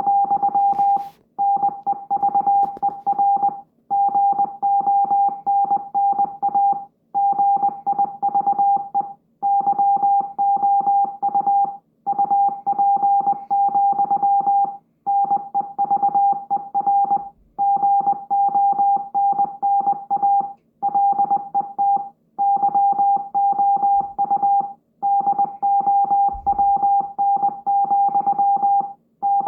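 Morse code beeping: a single buzzy electronic tone keyed on and off very rapidly, in runs of a couple of seconds separated by short gaps.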